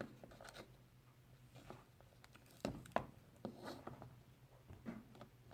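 Faint, scattered clicks and taps of metal pocket knives being handled, picked up and set down among others in a pile.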